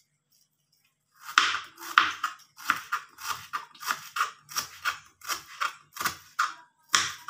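Kitchen knife slicing through a garlic clove on a plastic cutting board. A regular series of crisp cuts starts about a second in and goes on at a little over two a second, each knife stroke striking the board.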